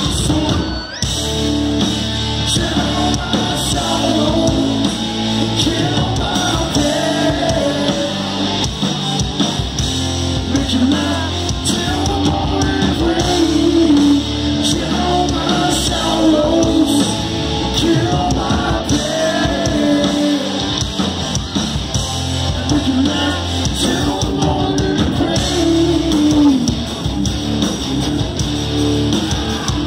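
Live hard rock band playing at full volume: electric guitars, bass and drums, with a singer singing and shouting over them, heard from within the crowd.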